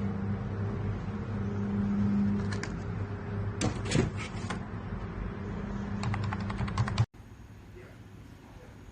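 Key clicks from a wireless keyboard with round typewriter-style keycaps: a few presses near the middle, then a quick run of about ten, over a steady low hum. The sound cuts off abruptly about two-thirds through, leaving faint room noise with a few light ticks.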